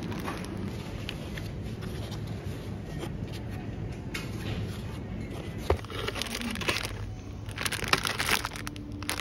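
Low steady hum with scattered clicks, knocks and scraping rustles; a sharp knock a little over halfway through, and a burst of rustling near the end.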